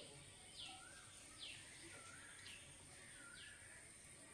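A faint bird calling over and over, about once a second: each call a short high note sliding down, then a lower wavering note.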